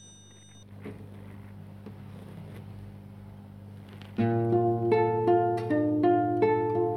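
Faint steady hum, with a chime's ringing tail fading at the very start. About four seconds in, an acoustic guitar starts playing picked chords, one note after another over a ringing bass note.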